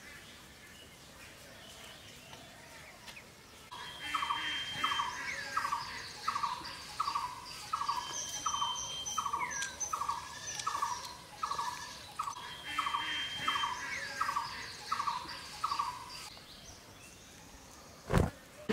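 A bird calls a long, even series of short notes, about two a second, over higher thin held notes; it starts about four seconds in and stops a couple of seconds before the end. Near the end comes a single dull thump, the loudest sound here.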